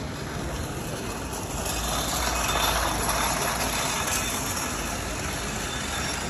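City street ambience: a steady wash of traffic noise with low rumble, swelling louder for a couple of seconds in the middle.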